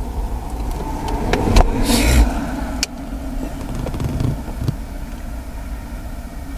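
Handling noises from working on car wiring and parts: a few sharp clicks, a brief rustle and a couple of low thumps about two seconds in, then a knock later, over a steady low rumble.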